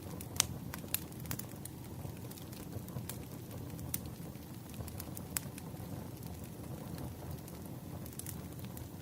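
Wood fire burning: a steady low rumble of flames with scattered sharp crackles and pops from the burning logs, the loudest about half a second in.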